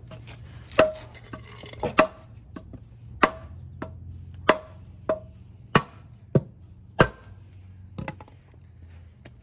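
A dead-blow hammer striking the stuck steel oil pan of a 2002 Ford Focus from below, about ten blows at an uneven pace. Several leave a brief metallic ring. The blows are meant to break the pan's gasket seal loose.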